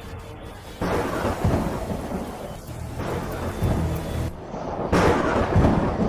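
Thunder and heavy rain of a storm. A sudden crack and rumble comes about a second in, and a louder one about five seconds in.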